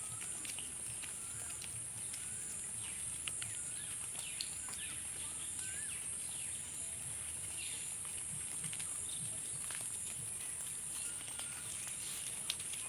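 Rural outdoor ambience: a steady high-pitched drone like insects, with many short bird chirps and quick falling whistle notes scattered throughout.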